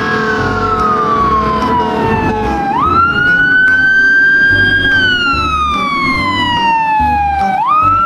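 Fire engine siren wailing, its pitch sliding slowly down and then sweeping quickly back up, twice, over a low rumble.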